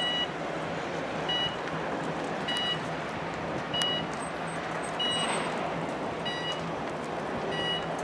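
Electronic warning beeper of a slow-moving driverless passenger pod, sounding a short beep about every 1.3 seconds, seven times, over a steady background hum.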